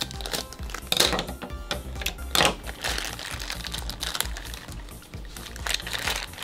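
Plastic bag crinkling in irregular bursts as it is squeezed and handled to push the trapped air out, over background music.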